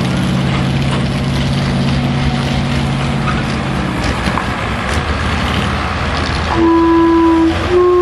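A heavy engine running at a steady speed, fading into general outdoor noise; near the end a horn or whistle sounds two steady held blasts with a short break between them.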